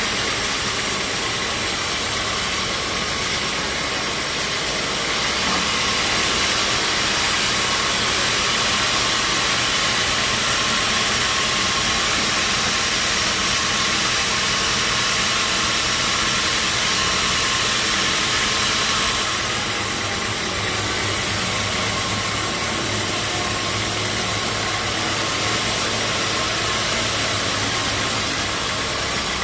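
Sawmill band saw running with a steady mechanical hiss, growing a little louder about five seconds in and easing back about five seconds later than the midpoint.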